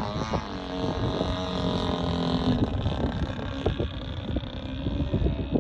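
Radio-controlled aerobatic model airplane's engine and propeller running overhead, the pitch dropping as it passes near the start, then steadier and gradually fainter. Wind rumbles on the microphone underneath.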